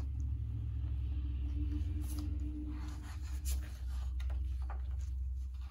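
Pages of a hardcover picture book being turned by hand, with paper rustling and a few soft clicks, over a steady low hum that cuts off near the end.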